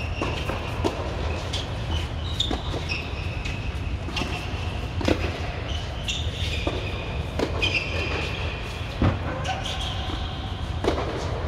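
Tennis rally on an indoor hard court: sharp pops of the ball struck by racquets and bouncing, roughly one a second, with short high shoe squeaks between them. A steady low hum runs underneath.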